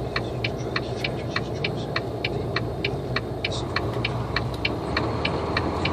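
Semi truck's diesel engine running steadily, heard from inside the cab, with a regular light ticking about three times a second over it.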